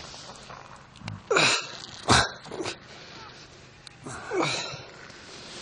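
Several short, voice-like bursts, likely grunts or brief exclamations from the men working on the carcass, the loudest about one and a half and two seconds in, and another a little past four seconds.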